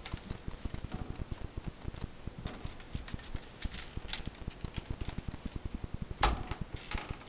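White PVC pet-gate panels being handled against a wooden door frame and its clasps: light plastic clicks about three and a half seconds in and a sharp knock a little after six seconds, over a fast, low, even pulsing.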